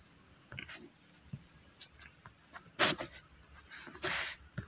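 Stylus writing on a tablet screen: a few light taps, then two short scratchy strokes about three and four seconds in, as a tick mark and a circled letter are drawn.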